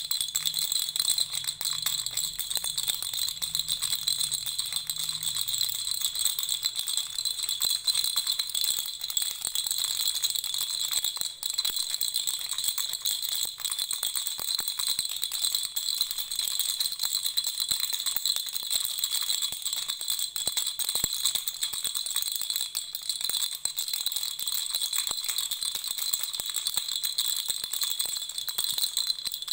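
Baby rattle shaken continuously, a dense steady rattling with a bright jingling ring.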